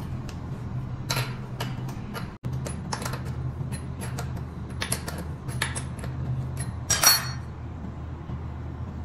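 Metal hand tools and scooter suspension parts clinking and knocking as they are handled, a string of short sharp clicks, the loudest a ringing metallic clink about seven seconds in, over a steady low hum.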